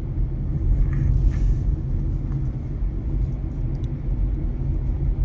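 Steady low rumble of a car driving, heard from inside the cabin: engine and tyres on the road.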